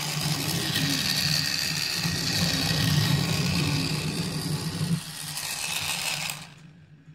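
Battery-powered TrackMaster 2 Hugo toy engine's small electric motor and gears running with a steady whir and a high whine, its propeller spinning. The sound cuts off abruptly about six seconds in as the motor is switched off.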